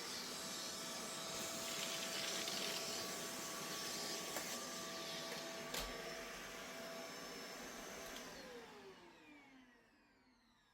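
Vacuum cleaner motor running steadily with a few knocks. About eight seconds in it is switched off, and its pitch falls as it winds down to quiet.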